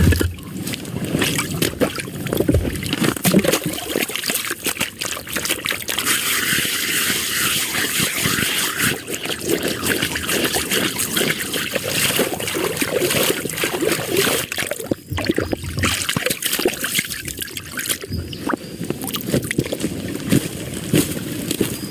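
Water trickling and sloshing, with many small irregular clicks and knocks.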